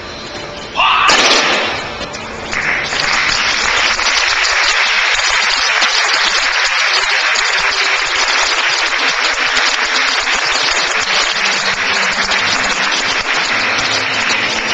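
A large audience applauding: a short loud outburst of voices about a second in, then steady clapping that carries on.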